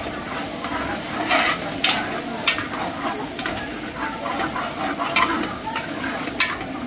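A utensil stirring and scraping in a cooking pot, irregular clinks and scrapes over a steady hiss of cooking.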